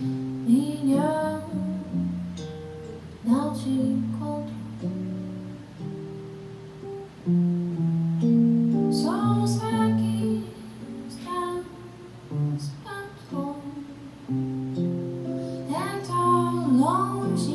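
Sadowsky SS-15 hollowbody electric guitar playing a jazz passage alone, plucked chords and single notes ringing and decaying, in a bossa-style song.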